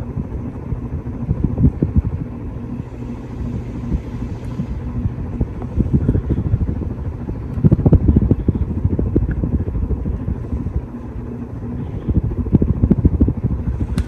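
44-inch Hampton Bay Wellston ceiling fan running, heard as an uneven low rumble that swells and fades over a steady low hum, loudest about eight seconds in and again near the end.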